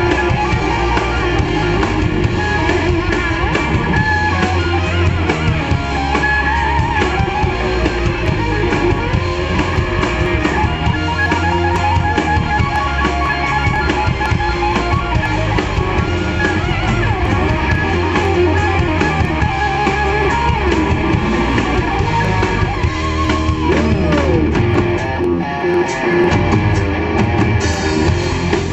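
Live rock band playing an instrumental passage: an electric guitar lead with bent, wavering notes over bass and drum kit.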